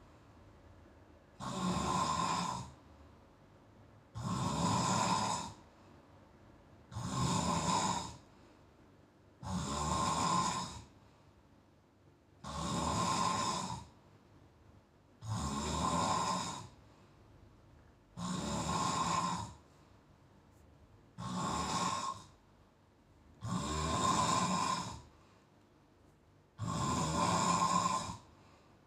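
A man snoring in a steady rhythm: ten snores, each a little over a second long and about three seconds apart, with quiet breathing between.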